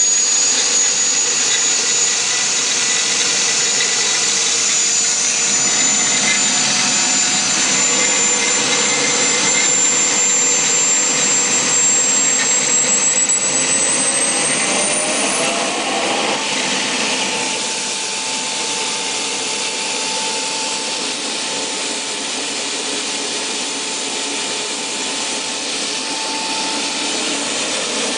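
Small gas turbine generator set running with a steady high turbine whine. About halfway through the whine and a lower tone both rise in pitch as the turbine speeds up, then hold steady at the higher pitch.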